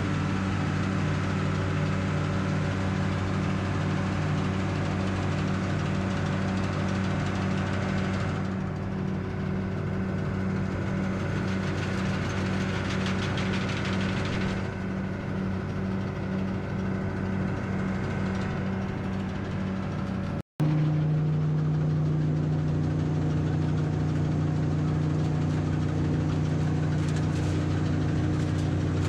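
Engine of grape-harvesting farm machinery running steadily at a constant speed. There is a brief dropout about twenty seconds in, after which the engine tone is a little different.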